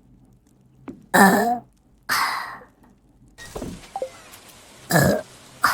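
A woman burping: a string of short burps about a second apart, some weaker ones in between.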